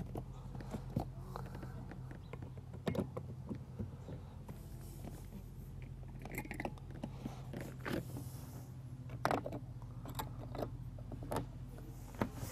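Scattered small clicks, knocks and brief rustles of hands handling the kayak's recessed valves and fitting their plastic caps back on, over a steady low hum.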